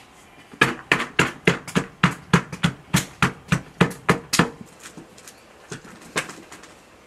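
A quick run of about fifteen sharp knocks, roughly four a second, lasting about four seconds, then one more knock near the end.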